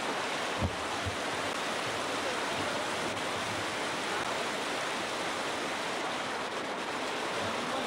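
Whitewater river rapids rushing steadily over rocks. A brief low thump sounds under a second in.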